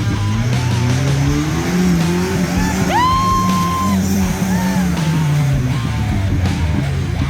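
Guitar music with a held, bent lead note about three seconds in, mixed over an off-road vehicle's engine revving up and down.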